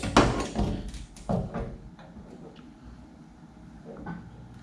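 A few sharp knocks and clatters, loudest in the first second and a half, then quieter scraping and small clicks: a fuel level sender being set into the opening of a metal fuel tank for a test fit, checking that its float stays off the tank bottom.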